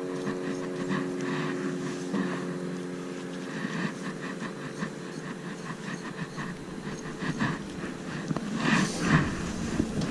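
A steady motor-like hum that fades out about three and a half seconds in, followed by scattered rustling and handling noises, loudest a little before the end.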